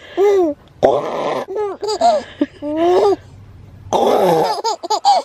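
Baby laughing in a string of short giggles that rise and fall in pitch, answering two bursts of a breathy noise an adult makes with the mouth, which the adult calls the most annoying noise.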